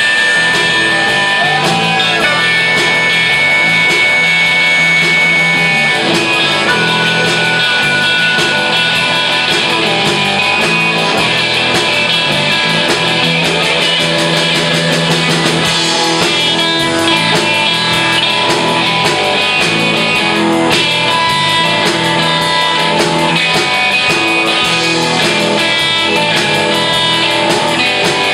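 Live electric blues-rock band playing: electric guitars, bass guitar and drum kit, with long held lead notes over the rhythm and a short bent note early on.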